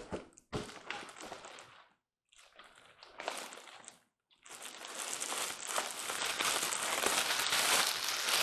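Packing material and cardboard crinkling and rustling as a shipping box is unpacked. It comes in three stretches broken by two brief silences, and the last stretch is the longest and loudest.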